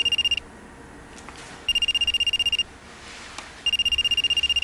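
Mobile phone ringing: an electronic, rapidly pulsing high ringtone in rings about a second long with about a second's pause between them.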